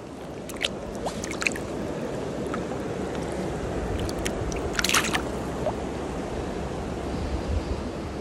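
Water splashing and sloshing as a trout is released by hand into a shallow stream, over the steady rush of the current. A few short, sharp splashes stand out, the loudest cluster about five seconds in.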